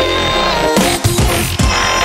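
Loud electronic dance music with a heavy bass line and drums.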